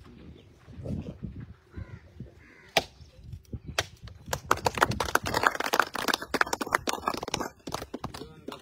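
A coconut struck against the concrete edge of the sluice and cracking open, with a sharp strike about three seconds in and another a second later, followed by a dense run of sharp cracks and claps lasting about three seconds.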